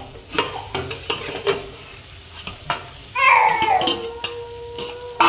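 Steel lid handled on a steel kadhai of frying tomato and onion: a few light metal clinks, then about three seconds in the lid comes off with a louder burst of sizzling and a steady metallic tone that lingers.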